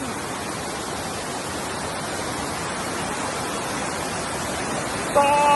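Waterfall heard up close, a steady, even rush of falling water. A voice calls out briefly near the end.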